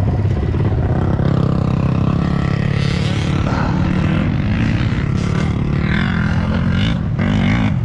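Dirt bike engine running steadily at low revs, with a short rise in pitch near the end.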